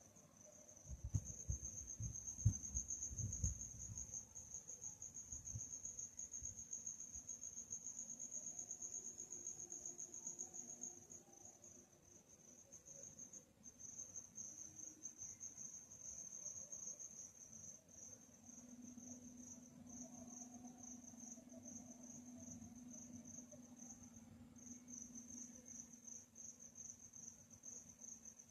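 Crickets chirping: a high, continuous trill that breaks into rapid pulses about halfway through. Low rumbling thumps sound in the first few seconds.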